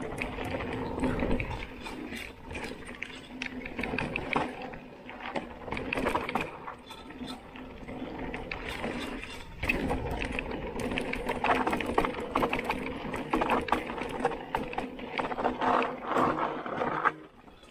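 Mountain bike riding down a dirt forest singletrack: tyres on the loose ground and the bike's parts rattling and clicking over bumps, with a steady buzz of the rear freewheel hub ratcheting while coasting. Low gusts of wind on the microphone come and go, and the sound drops suddenly near the end.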